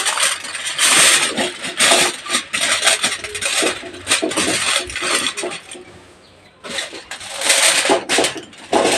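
Aluminium foil crinkling and rustling as hands crimp it down around the rim of a kadai to seal it. The crinkling comes in irregular bursts, with a quieter lull about five to six and a half seconds in.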